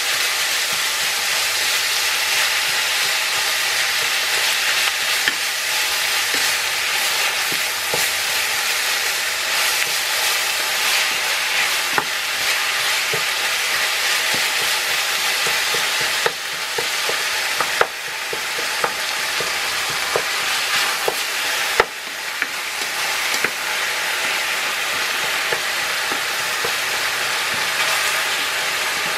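Ground beef sizzling steadily as it browns in an enamel frying pan while a wooden spatula stirs and breaks it up, with a few sharp knocks of the spatula against the pan.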